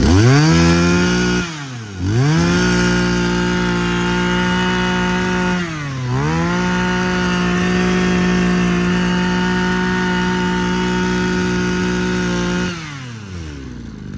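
Mitsubishi TL23 23cc two-stroke brush cutter engine revved up to full throttle and held there. The throttle is let off briefly twice, the revs dipping and climbing straight back, and near the end it drops back to a steady idle.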